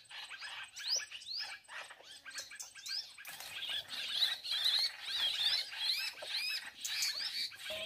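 Small songbirds chirping: a quick run of short rising chirps that becomes busier and louder, with several birds overlapping, about three seconds in.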